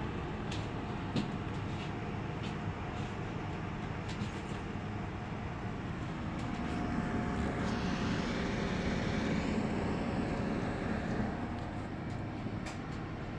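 Heavy construction machinery running steadily, with a low engine drone. The sound swells with a rising hiss from about seven to eleven seconds in, and there are a few sharp clicks.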